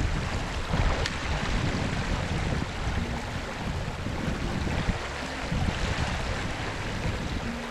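Wind buffeting the microphone in gusts over the steady rush of a fast river current.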